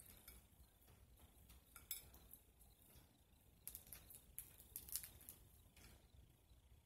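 Faint crackles and snaps of a boiled crawfish's shell being peeled apart by hand, with a few sharp clicks about two seconds in and a cluster between about four and five seconds in.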